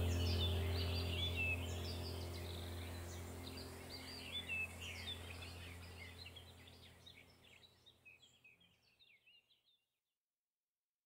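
Many small birds chirping over a sustained low drone of background music, the whole mix fading out to silence about three quarters of the way through.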